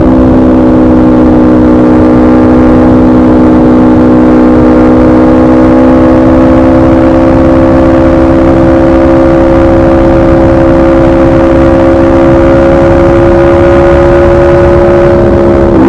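Aprilia RSV4 RF V4 engine through a de-catted SC Project CRT exhaust, very loud and held at steady high revs for a long stretch, its pitch creeping slowly upward. The pitch dips briefly right at the end.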